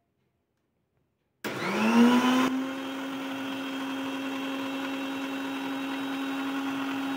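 Electric countertop blender switched on about a second and a half in, its motor whining up in pitch as it spins up, then running steadily while it blends yogurt with chopped nuts and chocolate powder. It is loudest for the first second after starting.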